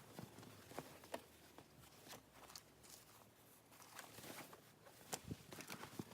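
Faint handling noises: scattered small clicks and short rustles, as of items and their packaging being handled during an unboxing.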